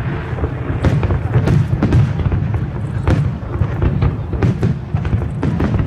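Aerial firework shells bursting in a rapid, irregular series of thuds and crackles over a continuous low rumble.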